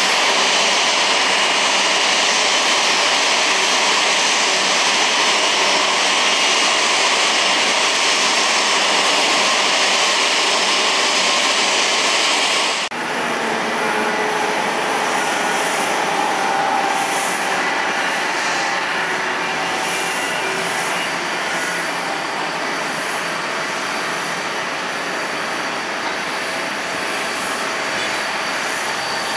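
Jet airliner engines running steadily, heard across an airport. The sound changes abruptly about halfway through to a slightly quieter jet sound with a faint whine.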